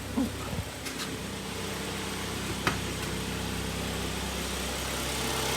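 Kia Sportage 3's freshly rebuilt engine idling steadily, running smooth and quiet with no knock after the cylinders were sleeved and the pistons replaced. A sharp click comes about two and a half seconds in.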